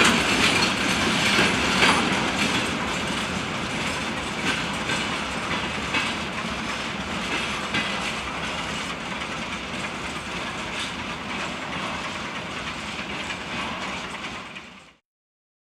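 Freight wagons of a train rolling past, their wheels clattering over the rail joints. The sound slowly fades as the tail of the train moves away, then cuts off abruptly about fifteen seconds in.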